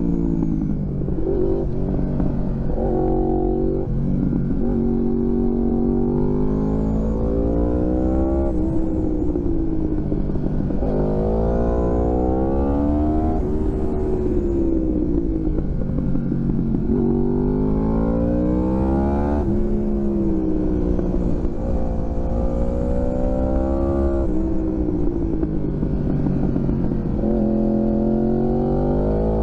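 2016 Yamaha R1's crossplane inline-four through Graves carbon-fibre slip-on exhausts, accelerating hard through the gears: the engine note climbs in pitch, drops suddenly at each shift or roll-off, then climbs again, about five or six times, over a steady low rumble.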